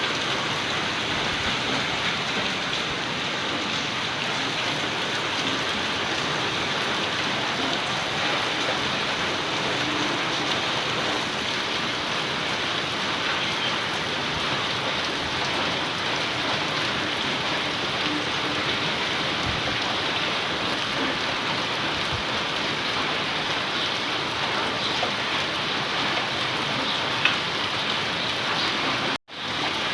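Heavy tropical-cyclone rain pouring steadily, a dense even hiss of rain on surfaces. The sound cuts out for a moment near the end.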